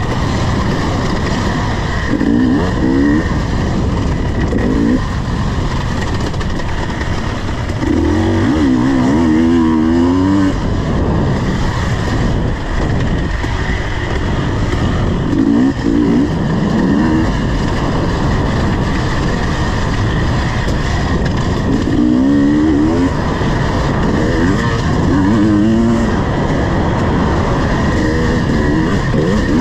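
KTM 250 EXC two-stroke enduro motorcycle engine being ridden hard on a trail, the revs repeatedly rising and falling as the throttle is worked on and off.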